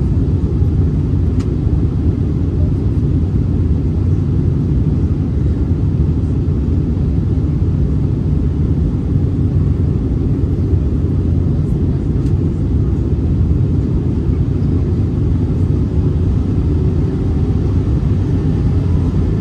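Steady low rumble of engine and airflow noise inside the passenger cabin of an Airbus A319-100 airliner in flight on approach.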